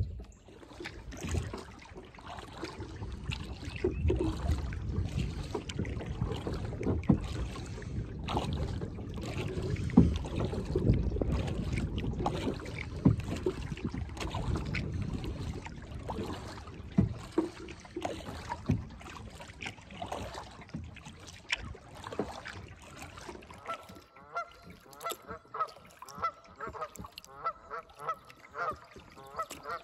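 Geese honking in a run of short, repeated calls that start about three quarters of the way in. Before that, irregular rustling and knocking noise.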